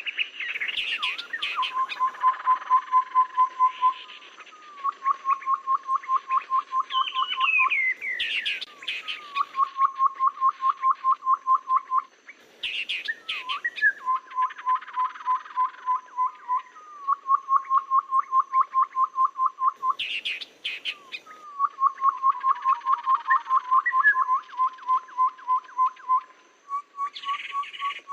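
Tepus kaban babbler calls played as a lure track: runs of rapid piping notes on one pitch, about eight a second, each run lasting about two seconds. Higher chattering calls come between the runs, and a falling whistle sounds about a third of the way through.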